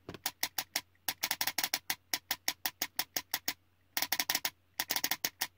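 RAVEN HPA engine's solenoid valve clicking as a freshly calibrated hair trigger is tested: single sharp clicks mixed with quick bursts of several clicks a second, firing on very short trigger travel.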